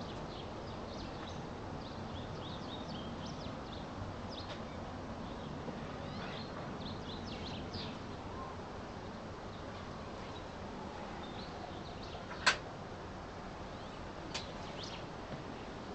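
Small birds chirping on and off over a steady low background noise. A single sharp click comes about three quarters of the way through, with a fainter one a couple of seconds later.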